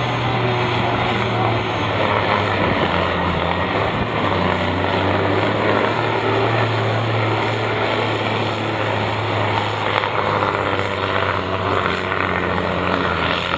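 International 1246 super sport class pulling tractor's diesel engine running flat out under load, dragging the weight sled down the track: a loud, steady, deep drone.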